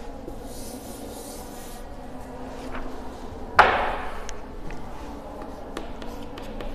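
Felt chalkboard duster rubbing across a blackboard, erasing. About three and a half seconds in comes one sharp knock, the loudest sound, followed by light chalk taps and scratches as writing starts on the board.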